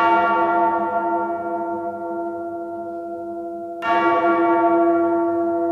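A large bell tolled twice, about four seconds apart, each stroke ringing on and slowly fading.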